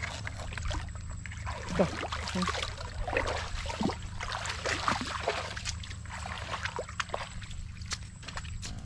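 Footsteps wading through shallow muddy water, irregular sloshing and splashing steps.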